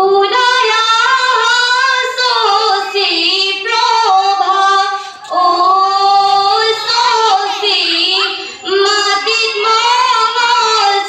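Group of schoolgirls singing an Assamese biyanam (traditional wedding song) together, in long flowing phrases with short breaks about five and eight and a half seconds in.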